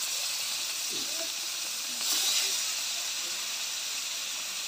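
Pieces of koi fish (climbing perch) frying in hot oil in a wok: a steady sizzle that swells louder about two seconds in.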